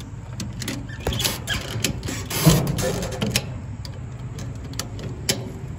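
Ratchet strap buckle being worked by hand to tighten a tie-down strap: irregular metal clicks and rattles, thickest in a burst in the middle.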